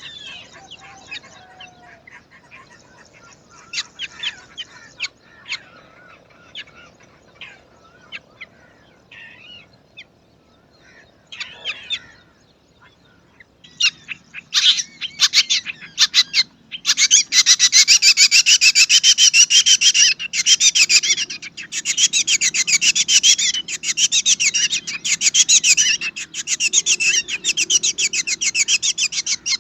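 Black drongo nestlings begging in the nest: scattered high chirps at first, then from about halfway a loud, rapid, high-pitched chattering in runs of a few seconds each.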